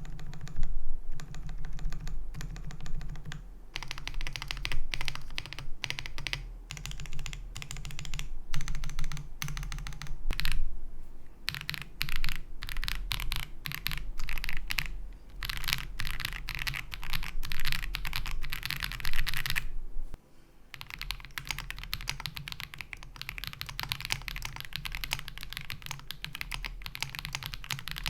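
Typing test on an Ikki68 Aurora R2 mechanical keyboard with lubed Akko Radiant Red linear switches on a polycarbonate plate, with lubed WS stabilizers. Fast, continuous keystrokes come in runs, with a brief pause about twenty seconds in. It gives the thocky plastic-case sound that the owner likens to a KBD67 Lite.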